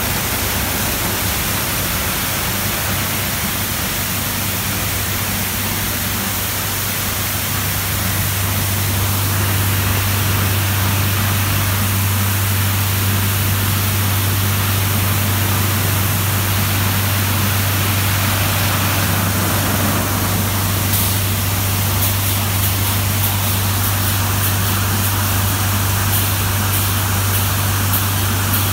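Christ Genius Vitesse rollover car wash running: rotating brushes and water spray hiss over a car, with a steady low machine hum that grows louder about eight seconds in. A scatter of short clicks comes through in the last few seconds.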